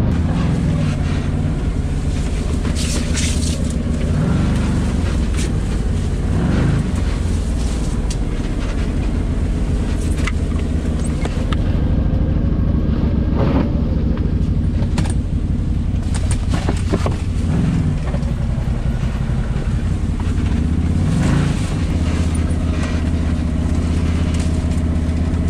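Can-Am Maverick Sport side-by-side's 100 hp Rotax V-twin engine running under way from the cockpit, its revs rising and falling every few seconds as the driver works the throttle. A few short knocks and scrapes are heard over it.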